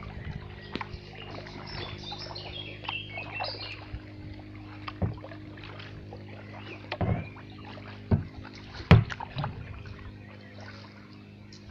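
Kayak paddling through still floodwater: a paddle dipping, with a few sharp knocks, the loudest about seven to nine seconds in. A steady low hum runs underneath and stops near the end, and brief high chirping comes about two seconds in.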